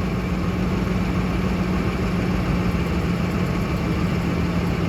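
2008 Ford F-150's engine idling steadily, with a constant low hum.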